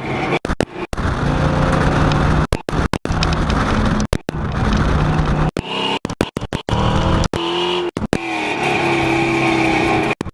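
A loud engine-like drone whose pitch climbs and then holds, chopped by many sudden brief dropouts in the sound.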